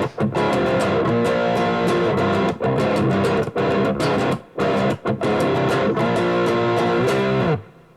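Distorted electric guitar with single-coil pickups (middle and bridge wired in series as a humbucker, bridge tone rolled off) playing crunchy chords in short phrases with brief breaks, through an overdrive pedal and a high-gain modeller into a mic'ed amp. The playing stops abruptly about seven and a half seconds in.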